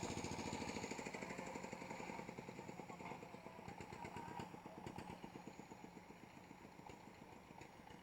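Small combustion engine running with a fast, steady pulsing beat that grows gradually fainter.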